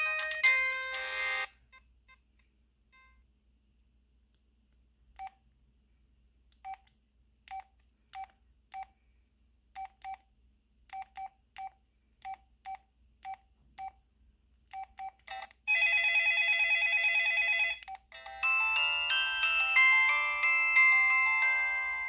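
Samsung Snap SCH-U340 cell phone playing its ringtones through its small speaker. A polyphonic melody stops a second or so in. After a pause come a string of short, identical beeps as keys are pressed to move through the ringtone list, then a buzzy two-second tone. About four seconds before the end, another polyphonic ringtone melody begins.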